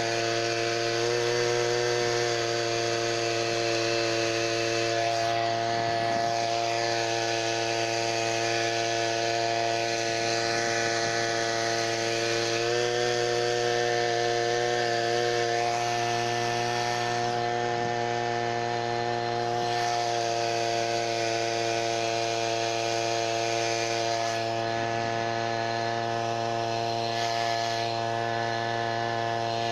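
Small homemade outboard motor's engine running steadily under way, pushing an inflatable boat. It holds one even engine note, which rises slightly about a second in and again about thirteen seconds in.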